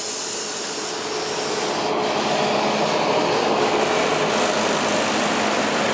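Steam hissing steadily from a standing Nilgiri X-class rack-and-adhesion steam locomotive, growing louder about two seconds in, when a low steady hum joins it.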